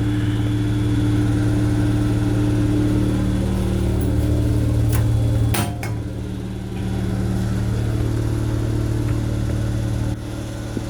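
Steady low electrical hum with pitched overtones from a Long Island Rail Road M7 electric railcar, heard inside its restroom. A couple of sharp clicks and a clunk come about five seconds in, and the hum is briefly quieter after them.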